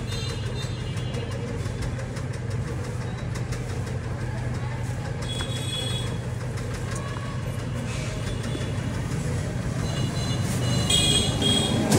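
Street traffic noise under a steady low engine hum, growing louder near the end, with a few brief high-pitched tones.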